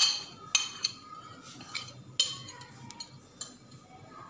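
A metal spoon tapping a small glass bowl to knock powdered spices out into a frying pan: about six sharp clinks at uneven intervals, the loudest right at the start and about two seconds in.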